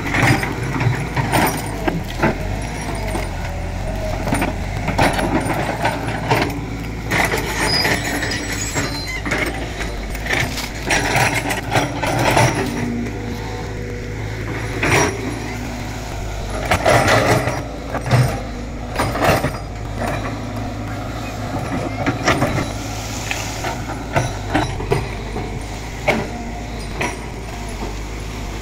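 Tracked excavator's diesel engine running steadily while its steel bucket digs and scrapes into soil and roots around a tree trunk. Repeated knocks, scrapes and cracks come over the engine's hum.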